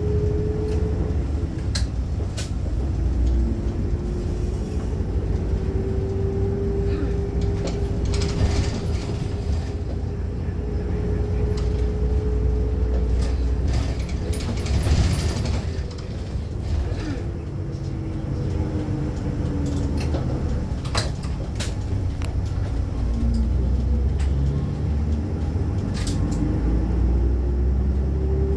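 Inside a Seibu route bus under way: the engine and drivetrain run with a low rumble and a whine that rises and falls in pitch as the bus speeds up and slows, with scattered rattles and a couple of short hissing bursts.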